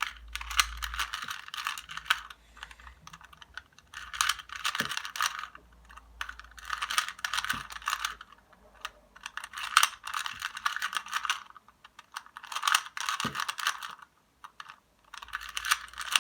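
2x2 Rubik's cube being turned by hand, its plastic pieces clicking and clacking in about six quick flurries of turns with short pauses between them.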